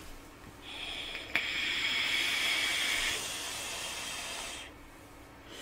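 Vaping: a long airy hiss of air drawn through an e-cigarette tank and blown out as vapour, lasting about four seconds, with one sharp click about a second in.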